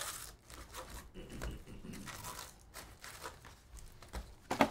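Foil-wrapped 2023 Topps Stadium Club card packs crinkling and rustling as they are pulled out of the hobby box and stacked, with a sharp knock near the end.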